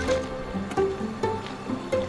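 Background music: a melody of short notes, one after another, each starting sharply.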